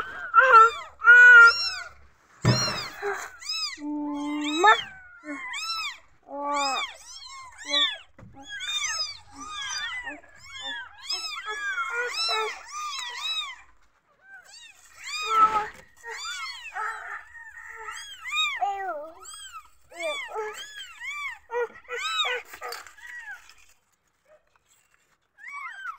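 Newborn kittens mewing over and over in short, high-pitched, arching cries, several at once, the cries of kittens feeling unsettled. They die down a couple of seconds before the end. A loud thump comes about two and a half seconds in.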